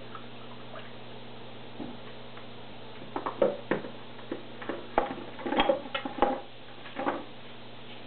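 Hard plastic media basket from a canister filter knocking and clattering against the sink as it is handled, a quick run of irregular clicks and knocks from about three to seven seconds in, over a steady low hum.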